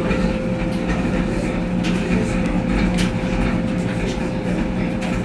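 Brastemp Tira Manchas Pro 12 kg washing machine running, a steady whine over a low hum and rumble, with faint scattered clicks.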